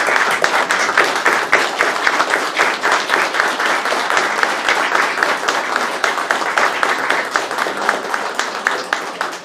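Applause from a roomful of people standing and clapping steadily; it dies away near the end.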